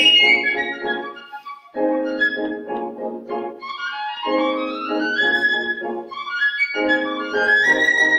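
Piccolo and piano playing: the piccolo plays fast rising runs high up while the piano plays dense, driving chords in bursts about every two and a half seconds.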